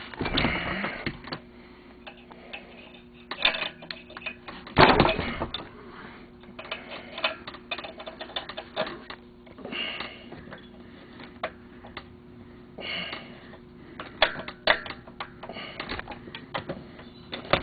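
Light clicks and taps of metal engine parts and hand tools being handled during a snowmobile engine rebuild, with a louder clunk about five seconds in, over a faint steady hum.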